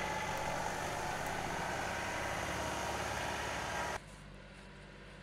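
John Deere 2038R compact tractor's three-cylinder diesel engine running steadily under load. The sound drops off abruptly about four seconds in, leaving a much fainter background.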